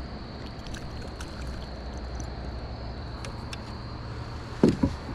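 Steady low background noise on a kayak on the river, with a faint steady high hum and scattered light clicks. A couple of louder knocks come near the end.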